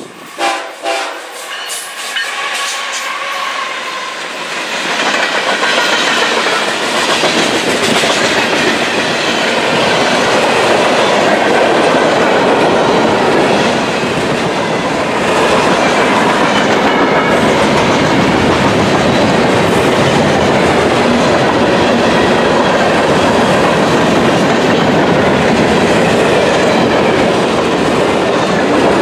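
BNSF freight train led by a GE ES44AC diesel passing close by. A brief horn-like note sounds right at the start. From about four seconds in, the steady loud rumble and clickety-clack of tank cars and boxcars rolling over the rail joints takes over.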